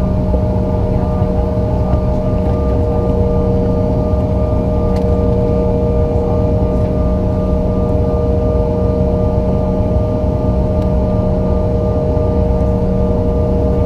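Bombardier CRJ-900LR's rear-mounted General Electric CF34 turbofans running steadily, heard inside the passenger cabin: a constant low noise with several fixed whining tones, neither rising nor falling.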